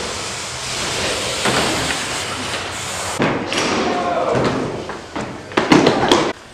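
Kick scooters and a BMX bike riding skatepark ramps: a steady rolling hiss of wheels with sharp clattering impacts, the loudest in a quick run of hits near the end.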